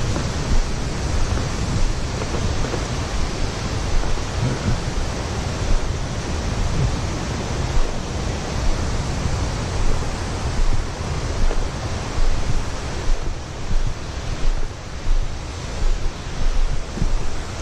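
Wind buffeting the microphone: a steady rushing noise with an uneven low rumble that swells and drops in gusts.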